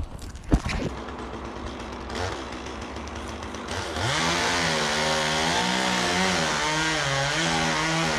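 Chainsaw idling low, then opened up to full throttle about halfway through and cutting into the wood of a fallen tree, its pitch wavering up and down under the load. A short knock comes about half a second in.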